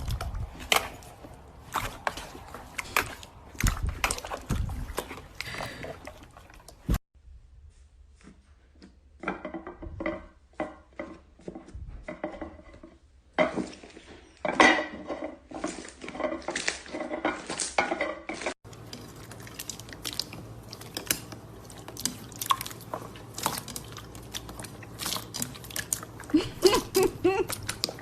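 Slime being pressed, squeezed and stretched by hand: dense wet clicking, crackling and popping. The sound changes abruptly three times as one clip cuts to the next.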